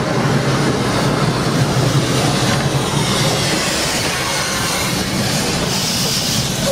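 Narrow-gauge (750 mm) steam locomotive, a 1945 Jung tender engine, rolling past close at rail level. Steam hisses from around its cylinders over a steady low rumble of the wheels and running gear.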